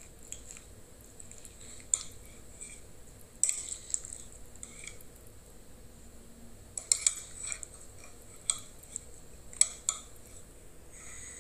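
A metal utensil clinking and scraping in a mug as scrambled eggs are eaten from it: scattered sharp clinks, with a cluster about seven seconds in and two more close together near ten seconds.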